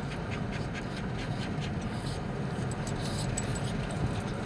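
Steady low road and engine noise inside the cabin of a moving car.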